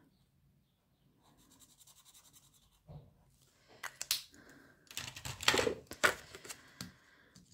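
Felt-tip pen scribbling lightly on paper, colouring in a printed savings tracker, as a fast run of faint scratches. Then a few sharp clicks and rustles of paper and small objects handled on a desk, loudest and densest about five to six seconds in.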